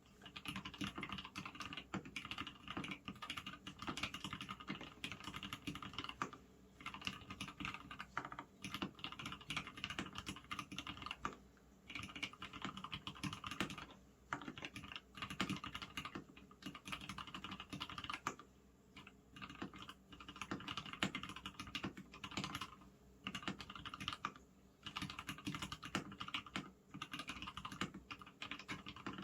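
Steady typing on a custom 65% mechanical keyboard with linear Gateron red switches on 62 g springs, a stainless steel plate and a polycarbonate case. A fast, continuous run of keystroke clicks breaks off every few seconds for brief pauses.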